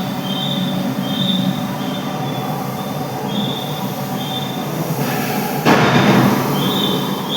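Steady industrial machinery din with a low hum and short high-pitched squeals repeating every second or so, swelling into a louder rushing noise about five seconds in.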